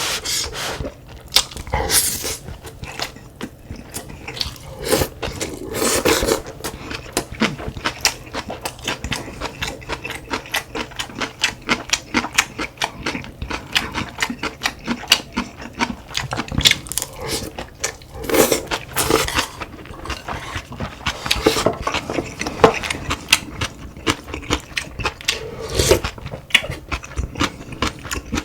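Close-up eating sounds: chewing and biting, with quick irregular clicks of spoon and chopsticks against bowls and a few longer, louder sounds now and then.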